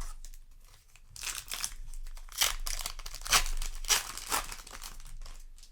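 Foil booster pack wrapper crinkling and tearing in irregular swells, with a few sharper crackles in the middle.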